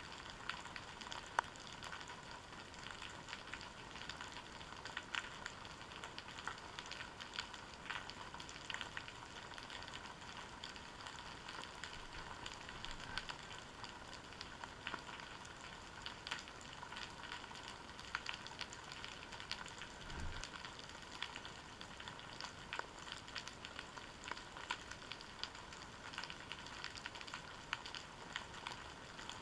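Continuous faint underwater crackling with many scattered sharp clicks, heard through a camera's waterproof housing resting on the seabed. One low, dull thump comes about twenty seconds in.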